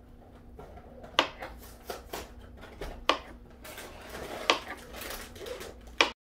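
Kitchen knife slicing through a banana, the blade knocking on the cutting board with each cut. There are four sharp knocks about every second and a half, with lighter taps between them.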